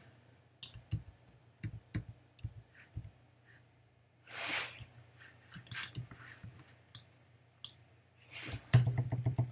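Scattered single clicks of a computer mouse and keyboard at irregular intervals, with a cluster of louder clicks near the end. A short breathy hiss comes about four and a half seconds in, and a faint low hum runs underneath.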